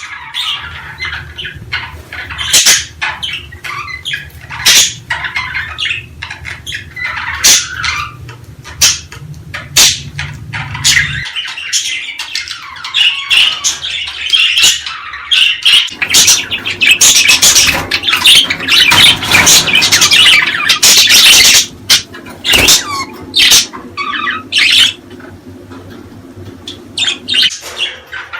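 Budgerigars chattering: a busy, continuous mix of warbling, chirps and sharp squawks. A low steady hum runs underneath, stopping about eleven seconds in and starting again around sixteen seconds.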